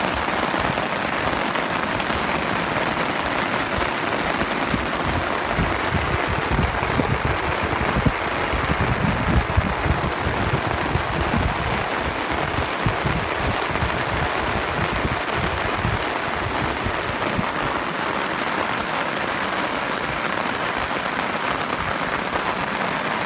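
Steady hiss and wash of ocean surf breaking on the beach, with wind gusting on the microphone as a rumbling buffet that is heaviest through the middle stretch.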